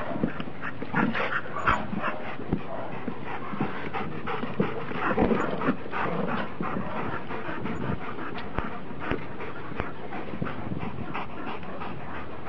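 Dogs panting and whining during excited play, with many short clicks and knocks scattered throughout.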